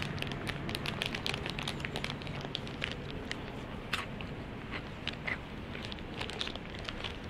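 Irregular crackling and crunching close to the microphone from a crunchy freeze-dried tofu snack being eaten and handled. The crackles are dense for the first few seconds, then thin out.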